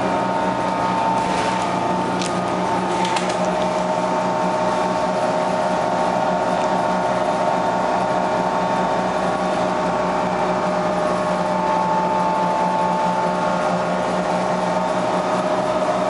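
Detroit Diesel 6V71N two-stroke V6 diesel running steadily with the bus under way, heard from inside the cabin: a steady drone with high steady tones on top. A few brief clicks or rattles come about one to three seconds in.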